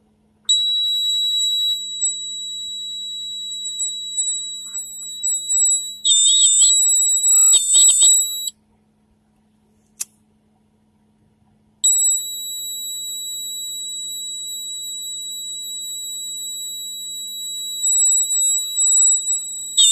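Piezo buzzer sounding a steady high-pitched tone, switched on as a heated fluorescent-tube starter's bimetal contact closes. The tone wavers in pitch briefly and cuts off about eight seconds in. A single click follows in the silence, and the tone comes back on about four seconds later.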